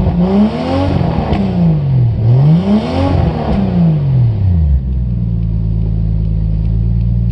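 1989 Toyota Supra Turbo's 7M-GTE turbocharged inline-six on a straight-piped 3-inch turbo-back exhaust, with no cats, resonator or muffler. It falls from one rev, is revved once more and drops back, then settles to a steady idle about five seconds in. Heard from inside the cabin.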